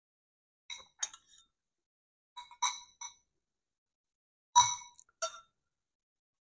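Metal spoon and fork clinking against a plate in three short clusters of ringing clinks about two seconds apart, the last cluster the loudest.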